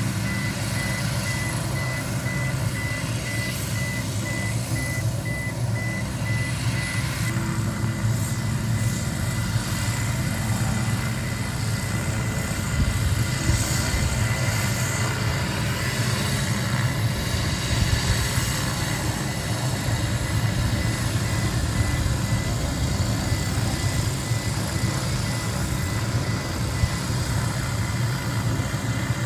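Steady low rumble of a motor vehicle's engine and road noise.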